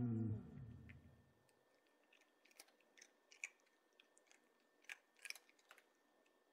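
Background music fades out over the first second and a half. Then a cat chews crunchy food taken from a hand: a scatter of faint, crisp crunches, a little louder near the end.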